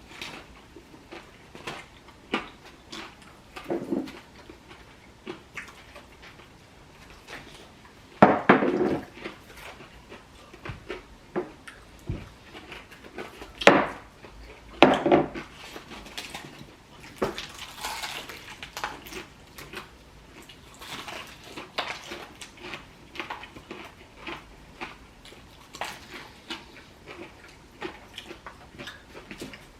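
Eating-race table noise: scattered clicks and clinks of plates and food being handled while fried chicken is eaten fast. There are a few louder bursts about a third and halfway through.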